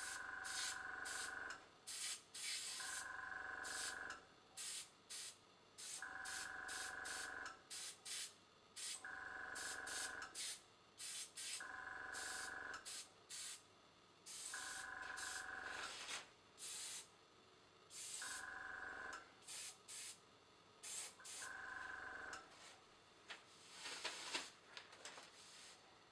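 Dual-action airbrush spraying acrylic paint in short hissing bursts, many in quick succession. A small tankless compressor hums in runs of about a second, starting and stopping eight times or so as air is drawn.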